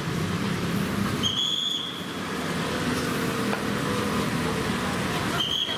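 Busy city street ambience with steady traffic noise. A short, high, steady tone sounds twice: about a second in and again near the end.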